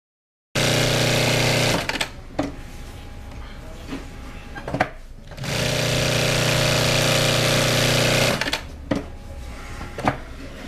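SGY2-0303D4 walking-foot industrial sewing machine running at speed in two runs, a short one of about a second and a longer one of about three seconds. Between and after the runs there are quieter spells with a few sharp clicks.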